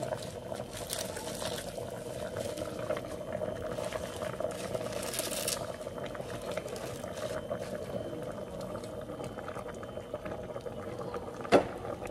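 A pot of vegetables boiling, with steady bubbling. There is one sharp knock near the end.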